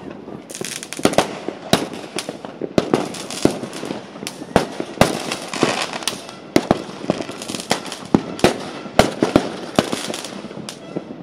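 Fireworks going off: many sharp bangs and pops at an irregular pace, sometimes several a second, with crackling between them.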